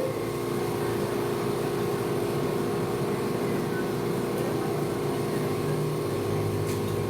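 Steady hum of a small fan or motor, holding one pitch without change.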